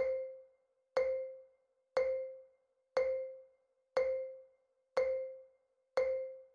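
Quiz countdown timer sound effect: a short pitched tick struck once a second, each fading within about half a second, seven in all.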